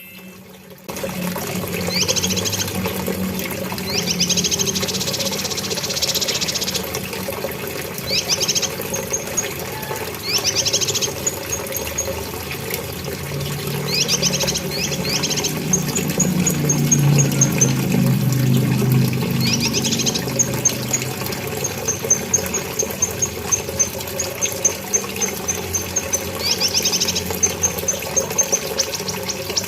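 Cucak kinoi songbird calling: clusters of rapid high sweeping notes every few seconds, with runs of quick high chips between them, over a steady low background noise.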